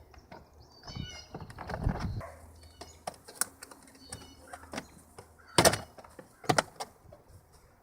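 Plastic steering-column clamshell covers being handled and pressed together around the column: a series of sharp plastic clicks and knocks, the loudest two about five and a half and six and a half seconds in.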